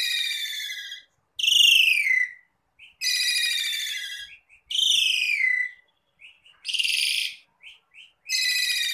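Asian pied starling (jalak suren) singing: a string of about six loud, whistled phrases, each about a second long and sliding down in pitch, with short chirps between. Near the end comes one harsher, rasping call.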